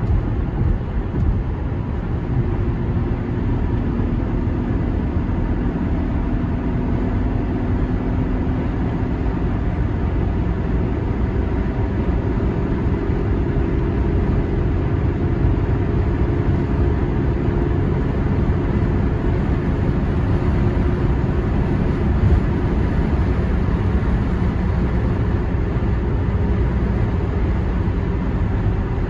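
Range Rover L322 driving at a steady cruise on a highway, heard from inside the cabin: an even engine drone with road noise, unchanging throughout.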